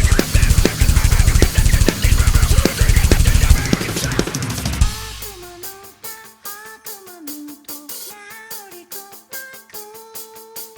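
Music: a loud band section with heavy drum kit, bass drum and snare that falls away about halfway through to a quiet passage. The quiet passage is a gliding melody over a steady ticking beat.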